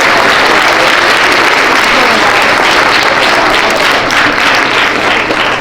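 Audience of schoolchildren applauding, a dense steady clapping that starts to thin into separate claps near the end.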